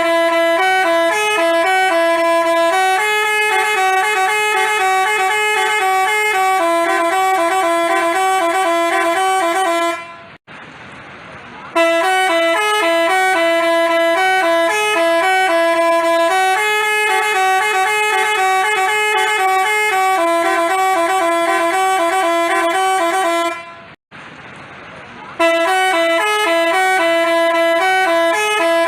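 Telolet 'basuri' multi-tone bus horn playing a tune of quick alternating notes and held notes. It breaks off twice, for about a second and a half each time, about ten and twenty-four seconds in.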